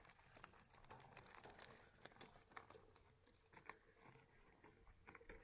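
Very faint footsteps on a hiking trail: irregular light crunches and ticks.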